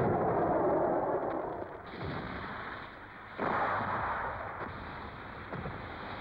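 Battle-scene artillery and tank cannon fire: one heavy blast at the start and another about three and a half seconds in, each fading away over about two seconds.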